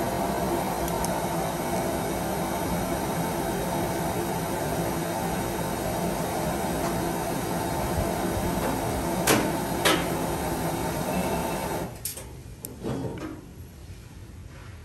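A steady appliance-like hum with two sharp clicks about nine and ten seconds in. The hum cuts off about twelve seconds in, followed by a few light knocks.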